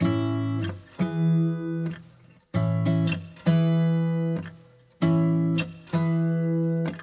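Background outro music: guitar chords struck about once a second, each ringing out and fading before the next.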